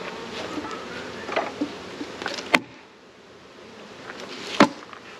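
Honeybees buzzing around an open hive, with two sharp knocks about two and a half and four and a half seconds in, the second the louder.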